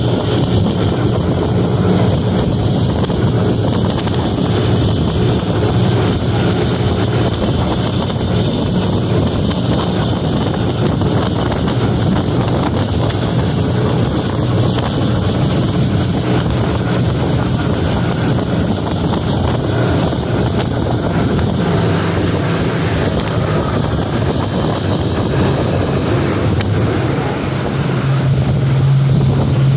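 Motorboat running at speed, its engine droning steadily under wind buffeting the microphone and the rush of spray off the hull. The engine note grows stronger near the end.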